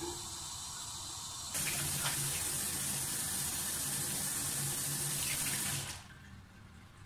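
Bathroom tap running into a washbasin: a fainter steady hiss, then the flow comes on loud about a second and a half in, runs evenly, and is shut off abruptly near the end.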